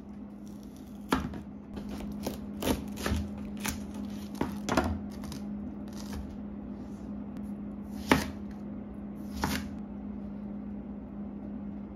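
Kitchen knife cutting a small watermelon on a plastic cutting board: irregular sharp knocks as the blade goes through the rind and strikes the board, several close together in the first half and two more near the end, over a steady low hum.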